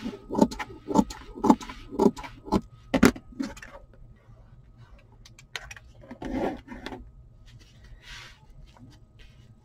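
Scissors snipping into the edge of a felt piece, about two cuts a second for the first three seconds or so. Then quieter handling of the felt, with a short rustle about six seconds in.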